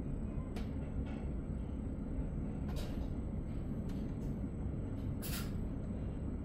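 Steady low rumble inside a double-deck commuter train coach, with a few short sharp clicks and a brief hiss about five seconds in.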